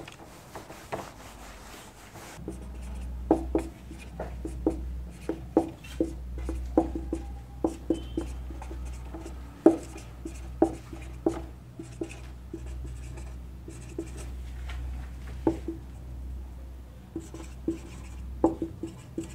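Marker pen writing on a whiteboard: a run of short scratchy strokes and light taps, coming irregularly, over a steady low hum that sets in about two seconds in. Near the start, softer wiping of a board duster across the whiteboard.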